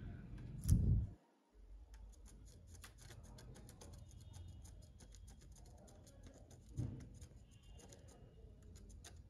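Faint, rapid ticking crackle as a hot soldering iron tip works flux paste on small surface-mount resistors to desolder them. Two low thumps, about a second in and again near seven seconds.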